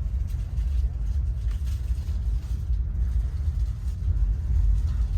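Steady low rumble inside a moving vehicle, the deep drone of the running gear and cabin with no distinct events.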